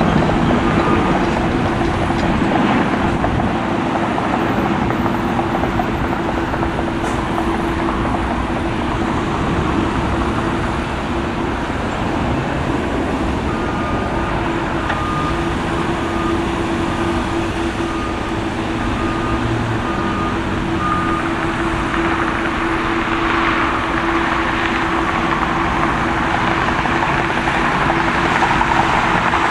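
Jet airliner engines running at taxi power, a steady rumble with a held low whine.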